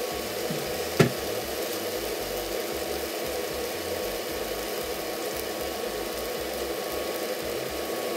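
Steady sizzle of a JUST Egg plant-based omelet frying in a nonstick pan, with one sharp click about a second in.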